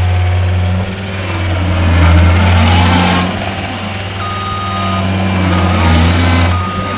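John Deere 329D compact track loader's diesel engine running under changing load, its hum swelling and easing, with a stretch of hydraulic and track noise about two to three seconds in. In the second half its backup alarm beeps in long tones.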